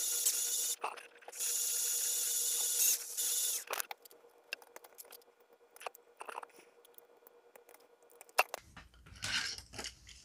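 Hyper Tough cordless drill running with its bit drilling out the rivet in a die-cast Hot Wheels car's base: a short run, a brief stop, then a longer run of about two and a half seconds. It is followed by small clicks and scrapes from a pointed tool picking at the car's metal base, and some handling rustle near the end.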